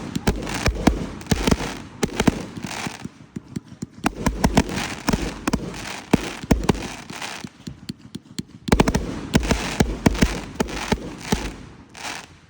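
A dense barrage of fireworks going off: many rapid sharp bangs and crackles mixed with deep booms, easing off near the end.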